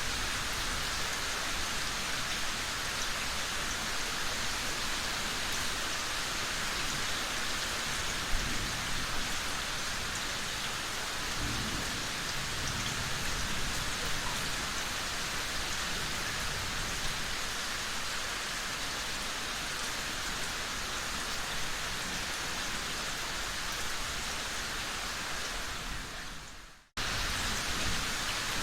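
Steady, heavy rain falling, with low rumbles of thunder. Near the end the rain fades out to silence for a moment and then cuts straight back in, a splice where the recording loops.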